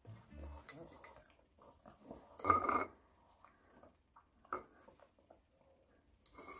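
Maltese dog licking and smacking its lips after swallowing medicine: faint, scattered wet clicks, with one short louder sound with a steady pitch about two and a half seconds in.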